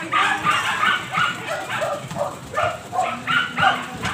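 A dog barking repeatedly in short yaps, about two or three a second.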